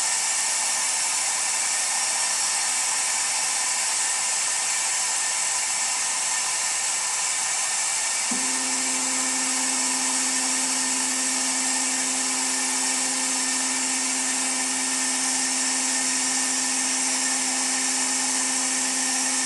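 Gas-dynamic cold-spray gun hissing steadily as its compressed-air jet sprays metal powder onto a steering rack. About eight seconds in, a steady low hum with a few tones comes in under the hiss.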